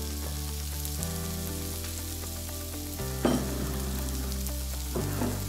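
Butter sizzling in a frying pan as chopped onion, green chilli and tomato fry in it, a steady hiss. Under it runs soft background music with sustained chords that change every second or two.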